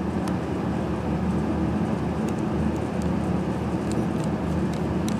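Steady low rumble and hum of background machinery, with a few faint small clicks as a wire and screwdriver are worked on a relay's terminal screws.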